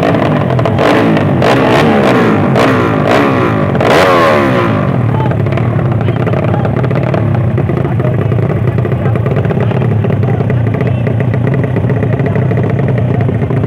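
Drag-racing motorcycle engines revving hard for about the first five seconds, with their pitch repeatedly climbing and dropping and several sharp bangs mixed in. After that, engines run with a steadier drone.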